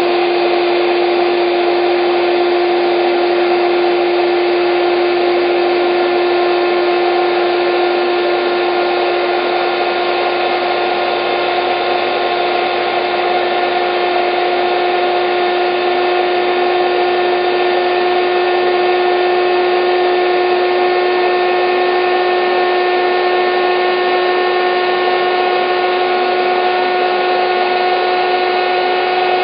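Electric air bed pump running steadily: a constant rush of blown air with a steady motor hum through it.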